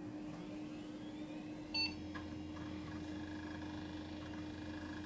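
Intel 486 DX2-66 desktop PC running with a steady fan hum. A single short PC-speaker POST beep sounds about two seconds in, and a deeper hum joins just after it.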